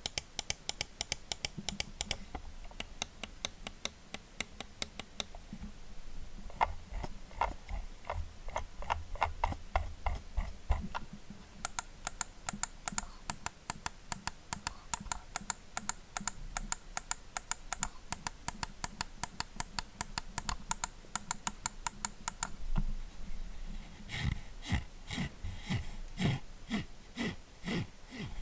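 Razer DeathAdder Essential gaming mouse buttons clicking in fast runs of sharp clicks. A duller, lower-pitched run of clicks comes near the end.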